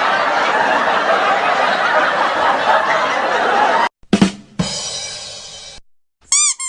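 A string of meme sound effects: a dense, loud crowd-like noise that cuts off suddenly about four seconds in, then a drum sting (drum hits followed by a ringing cymbal, the 'ba-dum-tss' joke punchline), then near the end a quick run of four bouncing, chirping tones.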